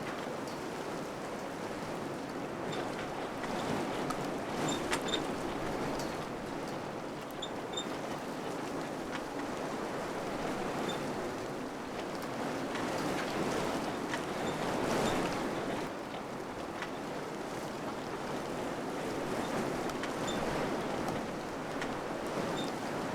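Wind blowing in steady gusts, rising and falling in swells, with a few faint high ticks through it.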